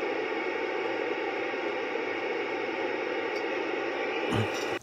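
Icom IC-2100 FM transceiver's speaker giving out steady receiver hiss with the squelch open: the repaired receiver is producing audio. The hiss cuts off suddenly near the end.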